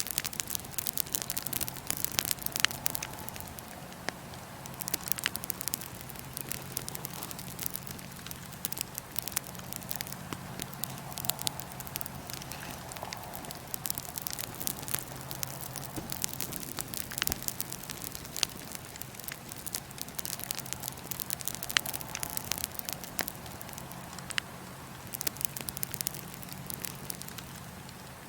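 Wood fire burning in a fire pit, crackling steadily with frequent sharp pops that come in busier clusters every several seconds, over a soft hiss and a steady low hum.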